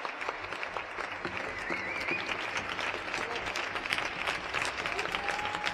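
Audience applauding: many hands clapping densely, with a few scattered calls from the crowd.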